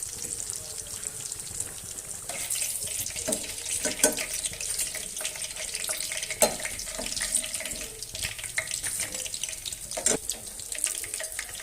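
Tap water running into a sink, with splashing and a few sharp knocks.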